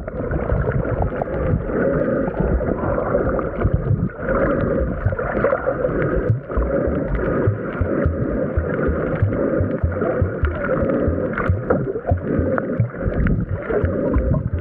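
Muffled underwater sound through an action camera below the surface: continuous churning water and bubbles as snorkelers kick and swim around it.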